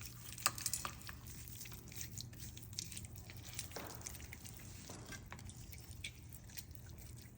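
Hands massaging raw chicken pieces with spices in a bowl: faint, wet squishing with scattered small clicks.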